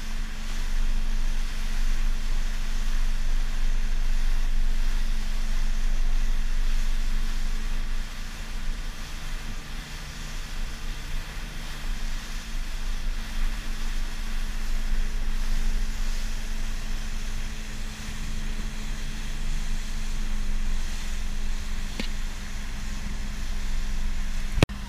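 Motorboat under way: the engine runs with a steady drone while water rushes past the hull and wind buffets the microphone.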